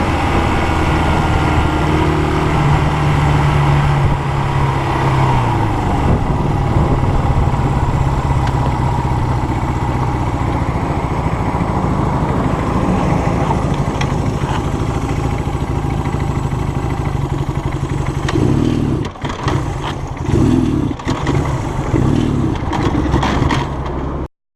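Honda CL175's small parallel-twin engine running under way on a ride, heard from a chest-mounted action camera. The engine note drops a few seconds in. Near the end the sound turns choppy and uneven, then cuts off abruptly.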